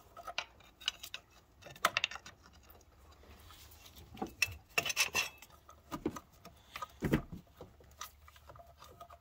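Metal hand tools and engine parts clinking and tapping as they are handled, in short irregular clusters of clicks and knocks.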